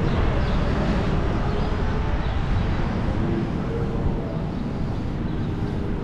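Wind blowing across the microphone, a steady low rumble, over outdoor street noise.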